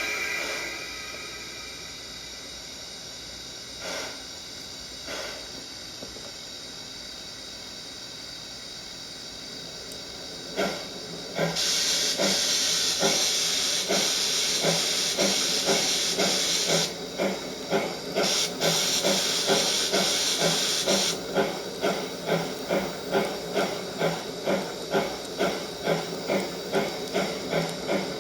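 Recorded steam locomotive sounds from a KATO Sound Box for a model train: a soft steam hiss at a standstill, then about ten seconds in the exhaust chuffs start under a loud burst of steam hiss. The hiss stops twice, and the chuffs run on in a steady rhythm of about two a second.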